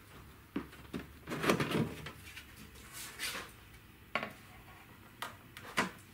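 Sheet-steel top cover of a slim desktop PC case being slid off and lifted away: a series of clicks and knocks, the loudest cluster about a second and a half in.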